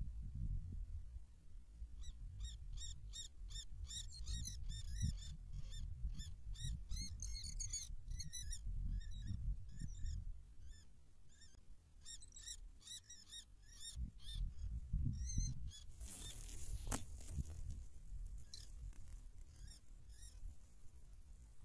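A small bird of prey calling in rapid series of short, sharp, high notes, about three a second, in several bouts, over a low rumble of wind on the microphone. Near the end comes a brief rustle with one sharp click.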